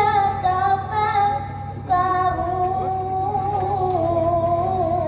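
A child's voice chanting Quran recitation in a melodic style, holding long ornamented notes that waver in pitch, with a short breath about two seconds in before the next phrase.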